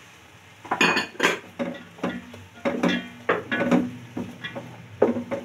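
Wooden spatula stirring vegetables and chicken in a large metal pot, scraping and knocking against the metal sides. The strokes come in a quick, irregular series beginning about a second in.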